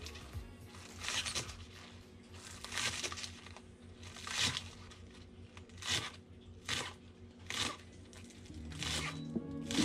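Kitchen knife slicing through a bunch of green onions onto a cutting board: separate sharp cuts about once a second, some in quick pairs.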